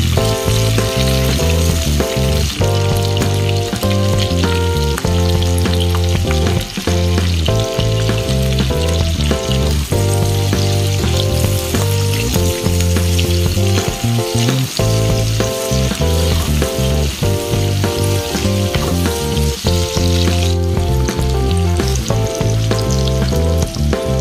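Onion and green capsicum pieces sizzling in hot oil in a pan as they are stir-fried with a wooden spatula, a steady hiss, over background music with a steady bass line.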